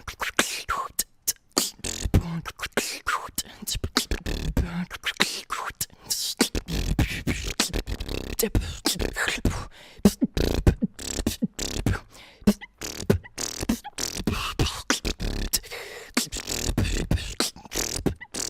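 Beatboxing: a fast, rhythmic run of mouth-made kick, snare and hi-hat sounds with short hummed and hissed vocal effects woven in.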